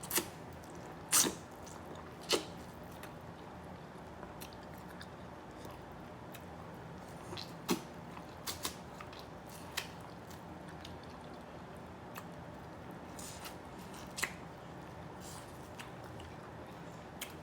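Close-up mouth sounds of someone chewing seafood, with scattered short sharp clicks and smacks; the loudest come about one and two seconds in.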